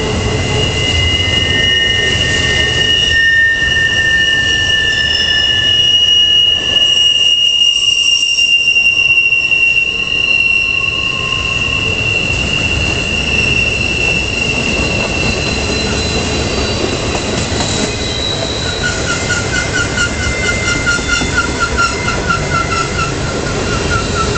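Norfolk Southern trailer-on-flatcar freight cars rolling past on a curve: a steady rumble of the wheels on the rails, with high-pitched flange squeal ringing over it. Near the end the squeal turns into a pulsing, wavering tone.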